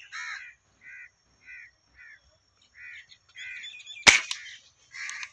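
A crow cawing over and over, about two short caws a second. About four seconds in, a single sharp shot from a Beeman Silver Kodiak X2 break-barrel air rifle, the loudest sound here.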